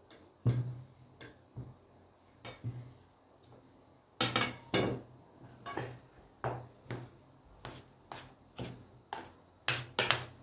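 A metal spoon scraping and knocking against a stainless steel bowl of crumbled white cheese, a run of sharp clicks about twice a second through the second half. A sharp knock comes about half a second in.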